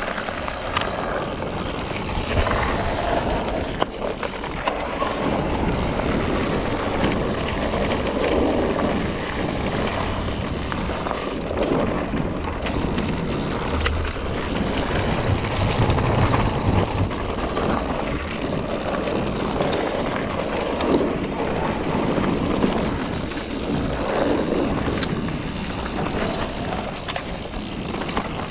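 Electric mountain bike ridden over a rough trail: tyres rolling on dirt with a continuous rattle and many small knocks from the bike, and wind on the microphone.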